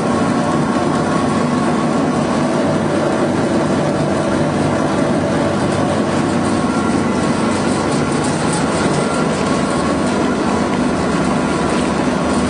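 Pet-food pellet production machinery running with a steady, loud mechanical noise.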